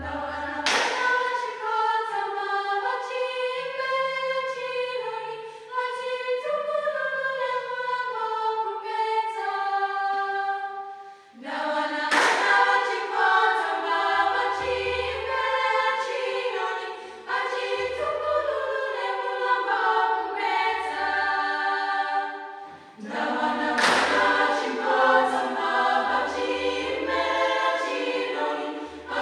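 Youth choir singing in several parts, the voices falling away briefly twice and coming back in strongly. From about a third of the way in, low hand-drum beats keep time under the singing.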